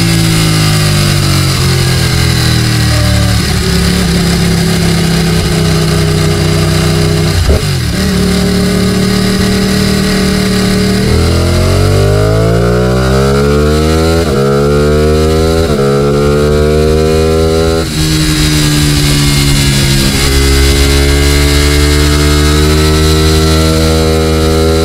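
Ducati Panigale 899's twin-cylinder engine pulling under way, heard from the rider's helmet with wind noise over it. Its revs hold steady, climb for several seconds from about the middle through a couple of quick breaks, then drop at a shift and hold steady near the end, with a brief sharp crack about seven seconds in.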